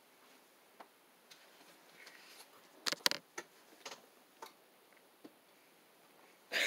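Scattered light clicks and taps at a low level, with a quick cluster of three or four about three seconds in.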